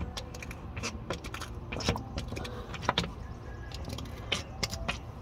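Hand-operated fluid pump on a plastic gear-oil bottle being worked to push oil through a tube into a differential: irregular plastic clicks and knocks over a steady low hum.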